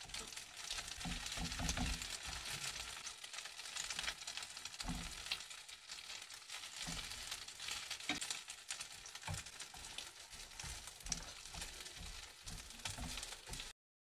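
Egg-battered fish cake skewers sizzling in oil in a nonstick frying pan, a steady sizzle with scattered sharp pops and clicks. The sizzle cuts off suddenly near the end.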